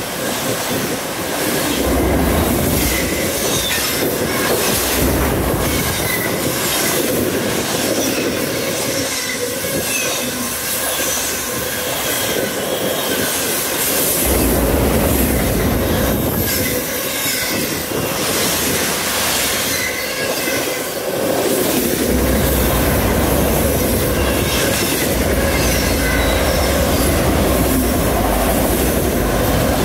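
Enclosed autorack freight cars rolling past at speed: steady steel-wheel-on-rail noise with repeated clicking of wheels over rail joints, and a deep rumble that swells and eases as the cars go by.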